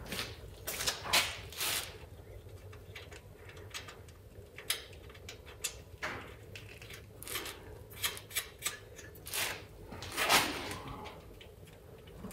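Scattered clicks, knocks and scrapes of sheet-metal parts on an air-cooled VW Beetle engine as they are handled and fitted, the loudest a longer scraping knock about ten seconds in.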